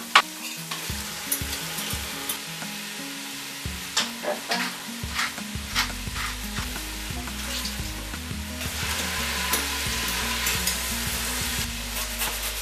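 Chutney base sizzling in a stainless steel pot on the hob, with the clicks and knocks of utensils and containers. Liquid is poured into the hot pot, and a steady hiss builds up about two-thirds of the way in.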